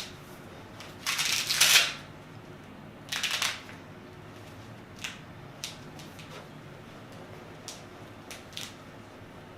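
Handling noise from the chiropractic setup before a Y-strap spinal adjustment: two bursts of rustling, the louder about a second in, then a few light clicks.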